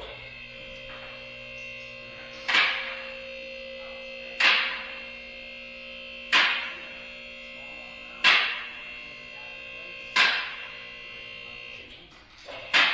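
Hammer blows on a steel suspension part, five ringing strikes about two seconds apart, with another near the end, over a steady hum.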